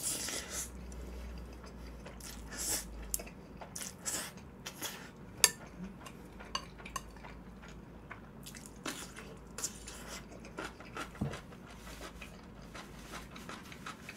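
Eating at close range: utensils clicking and scraping against a dish, mixed with small wet, sticky mouth sounds of eating thick Chapagetti black-bean noodles. One sharper click comes about five and a half seconds in.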